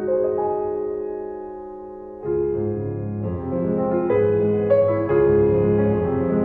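Background piano music of slow, held notes; a fuller chord with a low bass part comes in about two seconds in.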